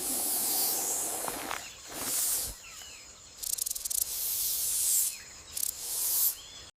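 Several separate bursts of high hissing, each about a second long, with a brief stretch of fast rattling about three and a half seconds in.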